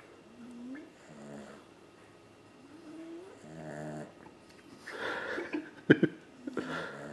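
Eight-week-old boxer–British bulldog cross puppy snoring in its sleep: a rising tone on each breath in and a buzzing snore on each breath out, about every two seconds. A few louder, rougher breaths come near the end, the loudest a sharp snort about six seconds in.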